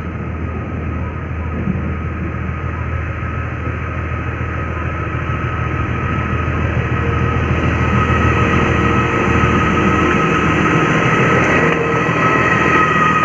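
ZDM-4A narrow-gauge diesel locomotive running with a steady low engine hum and a thin steady whine above it, both growing gradually louder.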